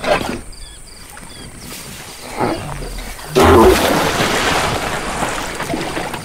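Cartoon sound effects of a round animated giraffe toppling over: two short bursts, then a heavy thud about three and a half seconds in and a long rushing scrape over dirt that slowly fades as it rolls.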